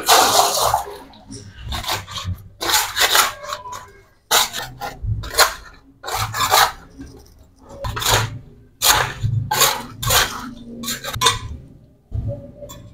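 Metal hand scraper scraping algae and muck off the floor of a drained pond, in repeated strokes about once a second.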